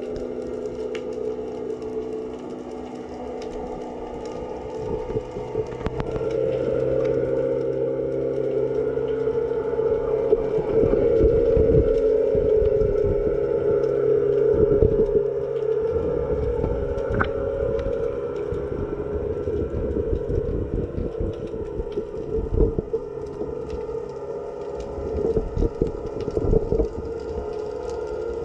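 Underwater sound picked up by a camera submerged in a harbour: a steady droning hum of several stacked tones that swells from about six seconds in, with irregular low knocks and rustles and a few sharp clicks.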